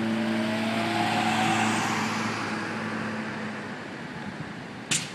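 An engine running with a steady hum and a rising tone over a rushing noise; the hum stops about three-quarters of the way through, and a sharp click comes near the end.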